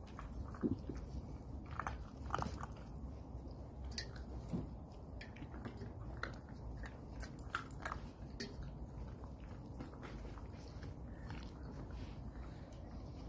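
Tibetan mastiff puppies play-biting and mouthing at their mother, giving scattered small snaps and clicks over a low steady background.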